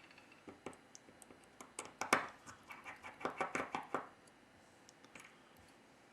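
Faint small clicks and scratches of a repair tool working on a disassembled Samsung A9 smartphone's internals, most of them packed into a quick run about two to four seconds in.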